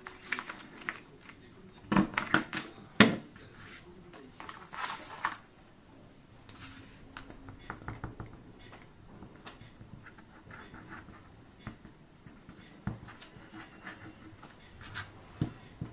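Paper and craft tools being handled on a work table: scattered light knocks and clicks, the loudest about two and three seconds in, with rustling and faint scraping between.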